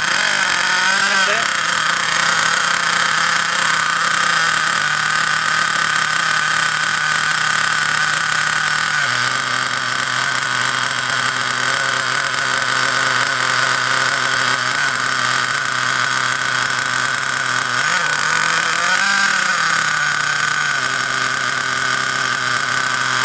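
The .28 BigBlock nitro engine of an Ansmann Virus 2.0 1/8 buggy running at a fast idle with a little throttle held, on its first tank of break-in with the mixture set rich. Its note drops in pitch about nine seconds in and wavers briefly a few seconds before the end.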